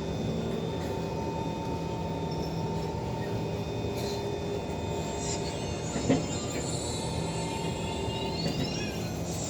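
Kawasaki C151 metro train running between stations, heard inside the carriage: a steady rumble and hum with a single sharp knock about six seconds in. Near the end a high whine rises in pitch over about two seconds.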